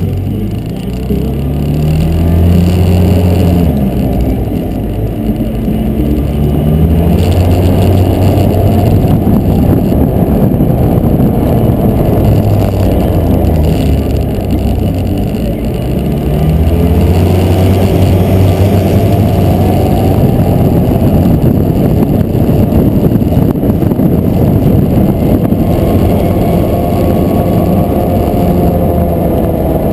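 A 2009 Polaris Ranger 700 EFI's twin-cylinder engine running while under way. Its pitch rises and falls several times as the vehicle speeds up and slows, over a constant loud rushing noise.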